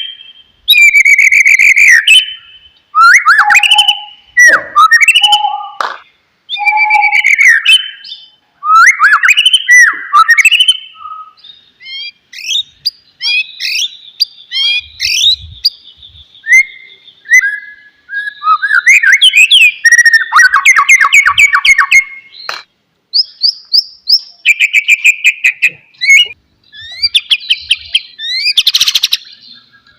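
White-rumped shama singing: a long run of loud, varied whistled phrases with pitch sweeps, broken by short pauses, and fast rattling runs of notes about two-thirds of the way through and again near the end.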